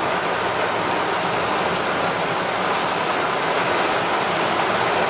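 Heavy rain falling on a car's roof and windshield, heard from inside the cabin as a steady, dense hiss.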